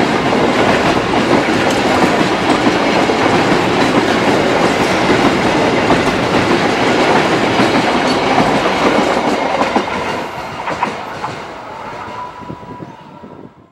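Freight train's container wagons rolling past, steel wheels running loud and steady on the rails. The sound fades from about ten seconds in as the last wagons go by, and cuts off at the end.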